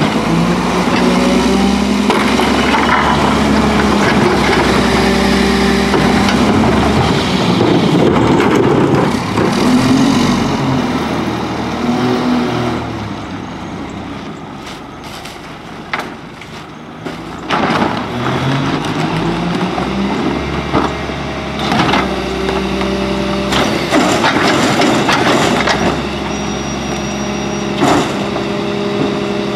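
Mack MR garbage truck's diesel engine held at high revs to drive the McNeilus rear loader's hydraulic packer, easing off briefly mid-way and revving back up. Several sharp knocks in the second half as carts are banged against the hopper.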